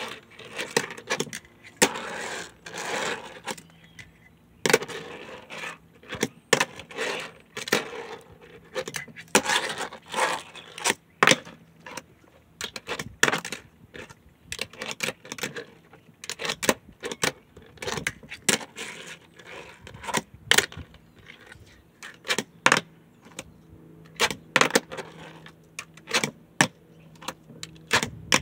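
Tech Deck fingerboard being flicked around a tabletop: irregular sharp clacks as the board is popped and lands, with short scraping rolls of its wheels in between.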